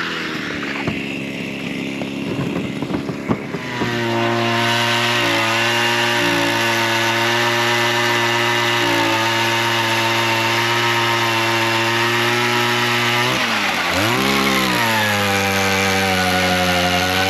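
Gas-powered ice auger engine running steadily at high speed while drilling a hole through the ice, its pitch dipping sharply and recovering once near the end. Knocking and clatter come before the engine opens up, about four seconds in.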